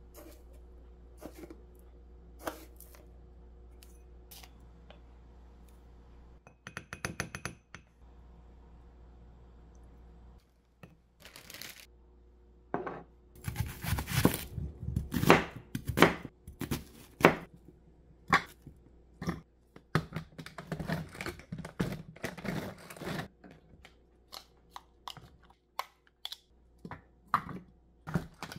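Kitchen knife cutting a whole onion on a wooden chopping board: a series of irregular sharp cuts and knocks on the board, densest in the middle and thinning out toward the end. Before it come a few light taps and a quick run of small clicks.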